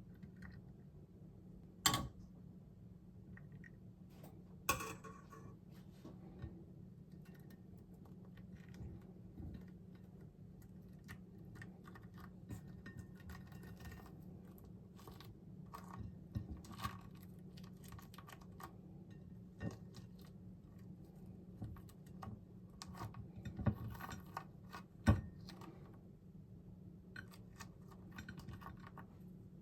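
Kitchen food-prep sounds: many light clicks and taps of utensils and dishes, with a few sharper knocks, over a steady low hum.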